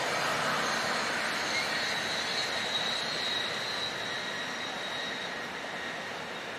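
A passing train's rolling noise fading slowly as it moves away, with a thin high whine over it through the middle.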